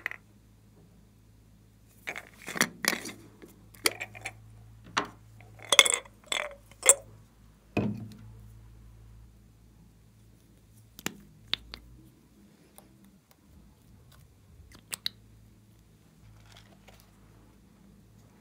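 Hard plastic containers and a small glass makeup bottle being handled: a quick run of sharp clicks, taps and knocks in the first half, then a few scattered clicks, over a faint steady low hum.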